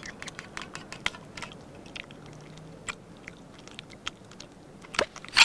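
European badger crunching peanuts from a wooden trough: a run of small, crisp crunches and clicks. About five seconds in, a sudden louder clatter breaks in as the string-triggered pulley-and-lever camera mechanism goes off.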